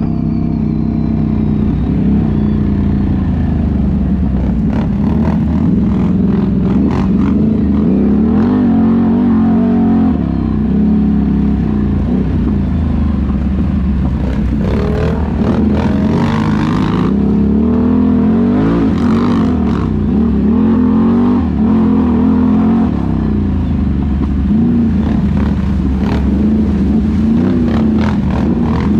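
ATV engine running along a rough dirt trail, its pitch rising and falling with the throttle, with scattered knocks and rattles from the bumpy ground.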